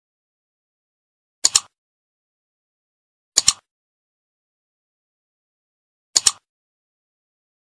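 Three computer mouse clicks, a couple of seconds apart, each a quick press-and-release double tick, with silence between.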